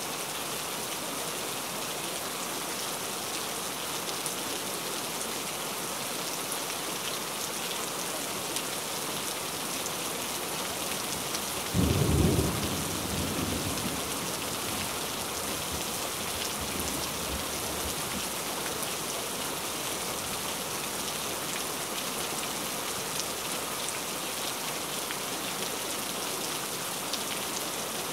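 Steady rain hiss with a single low rumble of thunder about twelve seconds in, fading over a couple of seconds.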